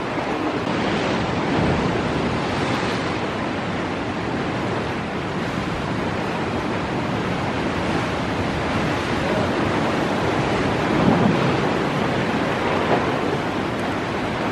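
Ocean surf breaking against a rocky shore and washing through the channels between the rocks: a steady rushing wash of white water that swells a little about eleven seconds in.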